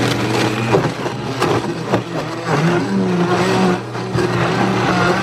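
Vitamix blender motor running at high speed, crushing ice, almonds and frozen fruit for a smoothie, with sharp knocks of hard chunks against the jar in the first couple of seconds. The motor's pitch dips about two and a half seconds in, then holds steady as the mixture comes together.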